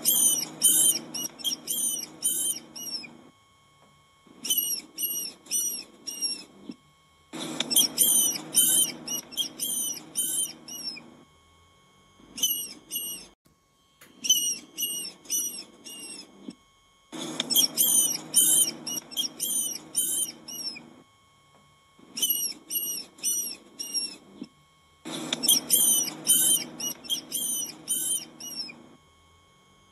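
Rodent squeaking: rapid high-pitched squeaks in bouts of a few seconds each, separated by short pauses.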